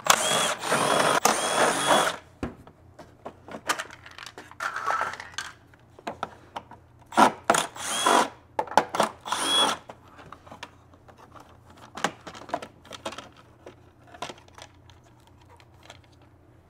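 Cordless power driver backing out the cover screws on a Stihl BR800 backpack blower in short runs: a long run of about two seconds at the start, then two shorter ones around the middle. Plastic covers and parts clatter and click in between.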